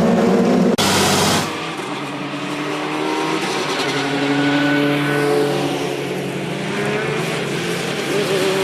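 Touring race cars' engines running as the field goes through a corner. About a second in, a sudden break is followed by a short loud rush of noise, then a single SEAT León touring car's engine running at lower speed, its pitch rising and falling.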